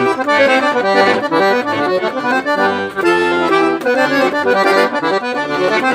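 Accordion playing a forró pé de serra tune: a quick run of melody notes over low bass notes.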